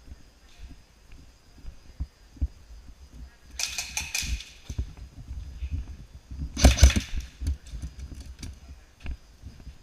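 Two short bursts of airsoft gun fire, the second the louder, each under a second long, followed by a few single sharp cracks. Low thumps and knocks of movement run underneath.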